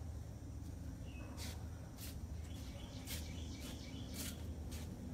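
Birds chirping in short, sharp calls every half second to a second, over a steady low background rumble.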